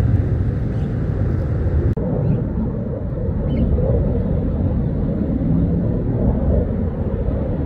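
Fighter jet's engines rumbling steadily from far off. The sound drops out for an instant about two seconds in.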